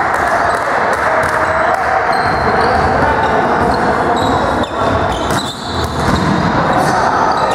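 Volleyball served and struck back and forth in a rally: several sharp hits on the ball, mostly in the second half, echoing in a gym hall over steady players' chatter.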